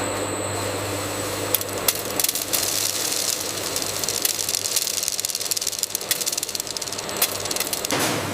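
Machinery running with a steady hum and a fast, dense clattering rattle. The clatter thickens about two seconds in and eases off near the end.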